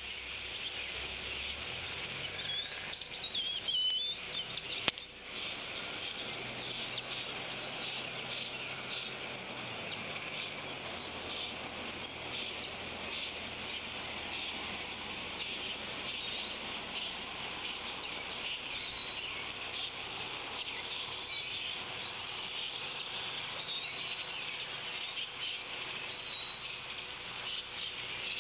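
Outdoor nest ambience: a steady high insect drone with repeated short, wavering high bird chirps. About four seconds in there is a brief louder scuffle ending in a sharp knock as the bald eaglet pounces on the squirrel and mantles over it.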